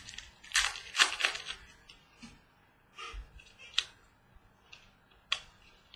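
Football trading cards being handled and flipped through by hand: several short, sharp flicks and snaps of card stock at irregular intervals, a quick cluster of them about a second in, then single ones.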